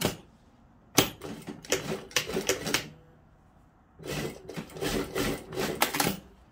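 Industrial sewing machine stitching in two short runs of about two seconds each, with a quiet pause between them. A single sharp click at the very start.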